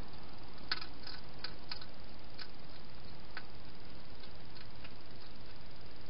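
Hedgehog eating from a bowl in a plastic feeding box: irregular sharp chewing clicks, strongest in the first few seconds and fainter later, over a steady hiss.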